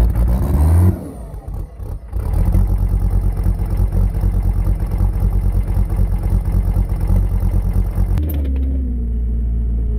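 Diesel engine revving up at the start, then running hard with a pulsing rumble. Near the end it settles to a steadier drone, with a whine that dips and then rises.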